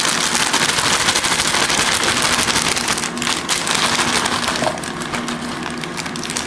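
Plastic salad bag crinkling as mixed salad greens are shaken and poured out into a plastic container: a dense rustling crackle that eases off about five seconds in.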